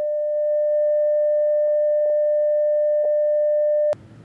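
Broadcast line-up test tone played over a TV program slate: a single steady mid-pitched sine tone with a few faint ticks on it. It cuts off abruptly near the end, giving way to a quiet low rumble.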